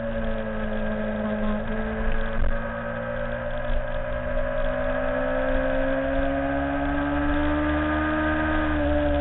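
Motorcycle engine held at steady high revs through a long leaned-over corner, recorded onboard with wind rumble on the microphone. Its pitch dips slightly early on, climbs slowly, then drops a little near the end.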